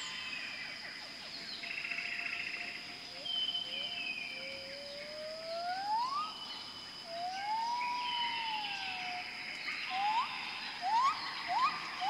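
Birdsong: clear whistled notes that glide upward, one long arched whistle, and a quick run of short rising slurs near the end, over a steady high-pitched hum.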